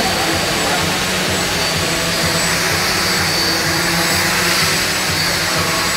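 The four ducted rotors of a quadrotor VTOL aerial vehicle running at steady speed: a loud, even rush of air with a high whine over it.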